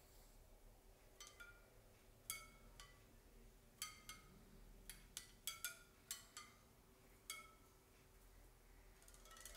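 Bicycle wheel spokes plucked one at a time like harp strings: about a dozen faint, bright, metallic pings at an uneven pace, each ringing briefly.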